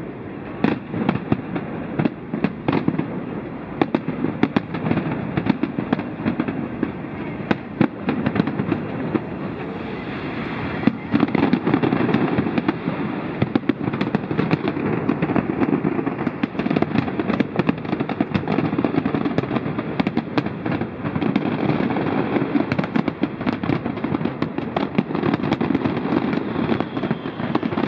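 Large fireworks display going off without pause: many sharp bangs and crackles over a continuous rumble of explosions, growing denser and louder about eleven seconds in.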